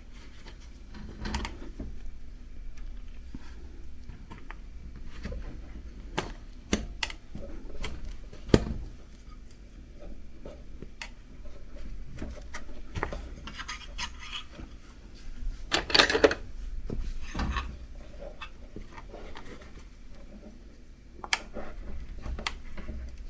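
A metal tire lever scraping and clinking against a bicycle wheel rim as a tight tire is pried off, with rubber rubbing against metal. The clicks and scrapes come irregularly, the loudest a sharp clatter about two-thirds of the way through.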